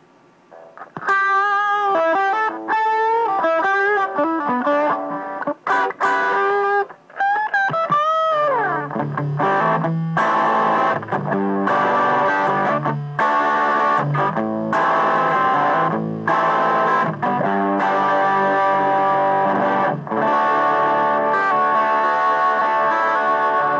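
Epiphone Les Paul electric guitar played through a Fender Mustang I modelling amp set to its Fender Twin Reverb model, with compression and the gain turned fully up. After a second of quiet it plays sustained single lead notes with bends and vibrato, ending in a falling bend about eight seconds in. It then moves to fuller chords and riffs with low notes.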